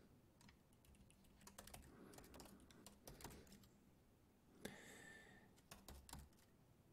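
Faint typing on a computer keyboard: scattered soft keystroke clicks, with a brief soft hiss about two-thirds of the way through.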